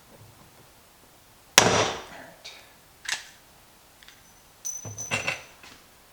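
Hand pop-rivet tool setting a rivet in a compost tumbler's lid ring: one sharp crack about one and a half seconds in as the rivet's mandrel snaps, followed by a few lighter clicks and a short metallic rattle near five seconds.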